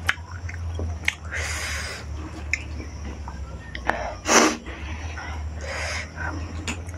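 Close-up eating sounds: wet mouth clicks and chewing, with a sharp, noisy breath, like a sniff or snort, about four seconds in. A steady low hum runs underneath.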